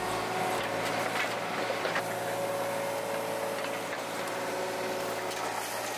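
Yanmar mini excavator's diesel engine running steadily while its bucket digs into the earth, with a few scraping knocks in the first couple of seconds.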